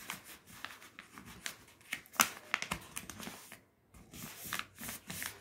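Folded coloured paper crinkling and crackling as a paper boat is pressed flat and creased by hand, in irregular short rustles with a sharper crack about two seconds in and a brief pause just before four seconds.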